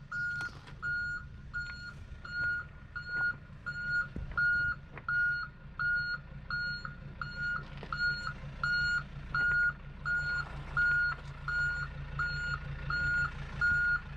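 A vehicle's reversing beeper sounds a steady train of short high beeps, a little under two a second, over the low rumble of its idling engine as it backs down the ramp.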